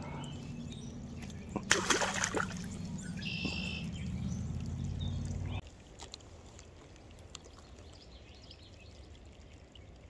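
Outdoor creekside ambience: a low steady hum that cuts off suddenly a little over halfway, a brief rustle and clatter of handling noise about two seconds in, and a short bird call about three and a half seconds in, then quiet.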